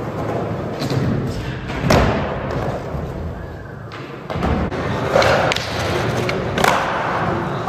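Skateboard wheels rolling on a concrete skatepark floor, with sharp board thuds and slaps from tricks about two seconds in and twice more in the second half.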